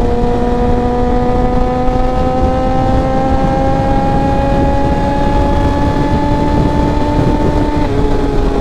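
Tuned Suzuki GSX-R1000 inline-four with a Racefit exhaust pulling in gear, its pitch climbing slowly as the bike gains speed, then dropping suddenly about eight seconds in. Wind rushes over the microphone underneath.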